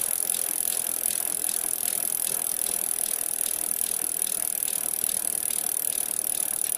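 Bicycle freewheel ticking steadily as the bike coasts, over a steady high hiss.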